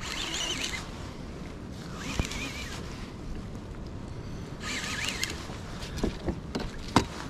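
Daiwa Lexa 300 baitcasting reel whirring in short bursts, about every two seconds, with a wavering pitch, while a hooked lingcod pulls on the line. A low wind and water hiss runs under it, with a couple of sharp knocks against the kayak gear.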